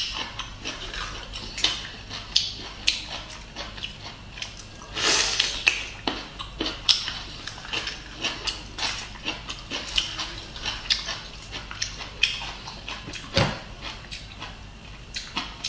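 Close-miked eating of boiled bamboo shoot: a steady run of wet crunches, bites and mouth clicks, several a second, as the fibrous flesh is chewed and torn by hand. A dull knock sounds near the end.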